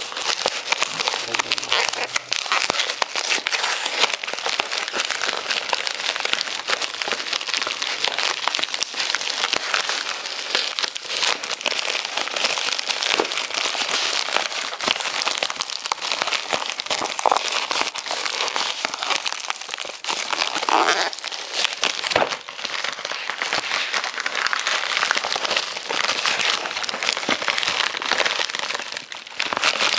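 Plastic shipping mailer crinkling and crackling almost without a break as hands struggle to pull it open.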